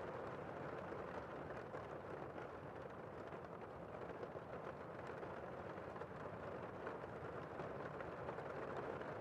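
Steady rain, an even rushing noise with faint scattered drop ticks.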